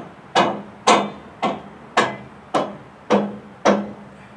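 Hammer blows struck in a steady rhythm, about two a second, seven strikes, each with a short ringing tone.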